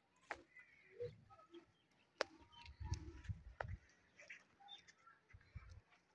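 Faint handling of peanut plants, with pods being plucked and dropped into a woven basket: a few sharp clicks and some soft rustling. Short bird chirps sound in the background.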